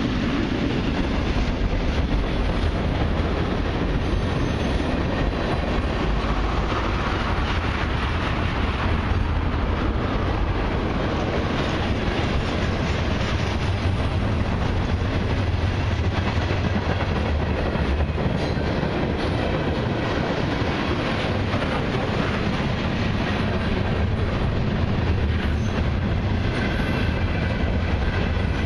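Freight train's tank cars and boxcars rolling past, steel wheels rumbling steadily on the rails. A faint wheel squeal comes in near the end.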